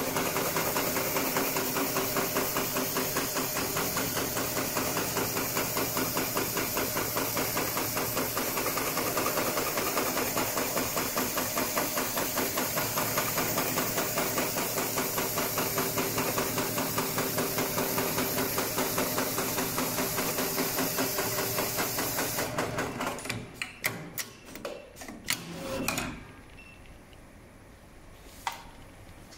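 HighTex 733PLC extra-heavy-duty programmable sewing machine stitching through five plies of 4 mm nylon webbing: a fast, even stitching rhythm with a hiss above it. About 22 seconds in the stitching stops, and a few sharp clicks and clacks of the machine follow before it goes quiet.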